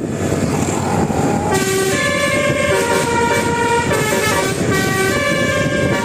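Basuri 'telolet' multi-tone musical air horn on a bus playing a melody from about a second and a half in, several horn tones sounding together and changing pitch, over a steady low rumble.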